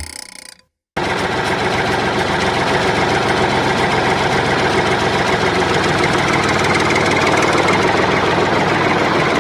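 Tractor engine running steadily at idle. It starts abruptly about a second in and holds an even level until it cuts off suddenly at the end.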